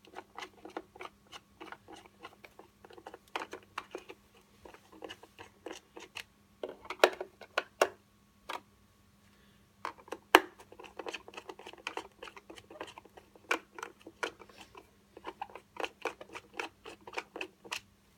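Screwdriver working the screws of a hoverboard's plastic shell: a rapid, irregular run of small clicks and scrapes, with a pause of about a second and a half around nine seconds in and a few louder clicks on either side of it.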